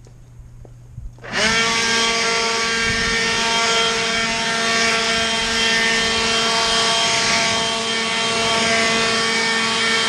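Cordless blower switching on about a second in, spinning up quickly, then running steadily: a high motor whine over a loud rush of air, blowing water off a car's paint.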